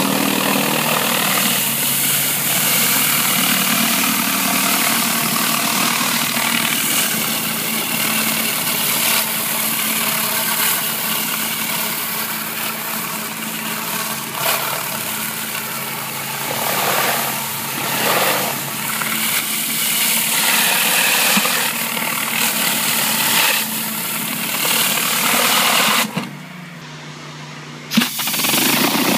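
Pressure washer at work: high-pressure water hissing out under a rotary surface cleaner on concrete, over the steady drone of the washer's engine. About 26 s in the spray cuts out for about two seconds, leaving only the engine, then comes back with a sharp knock.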